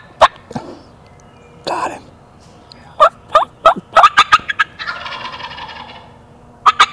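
Eastern wild turkey gobbler gobbling: a rapid rattling run of calls about three seconds in, preceded by a few sharp clicks.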